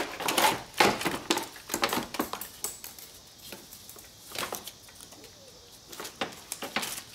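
A 2001 Volvo S60's plastic cooling fan and shroud assembly being worked up and out of the engine bay by hand: a busy run of knocks, scrapes and rattles for the first few seconds, then a few scattered knocks.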